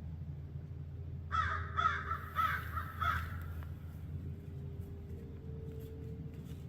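A crow cawing four times in quick succession, harsh calls about a second into the sound, over a steady low rumble.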